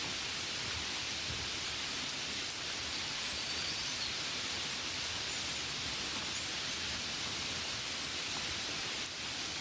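Steady rain, an even hiss with no distinct drops standing out.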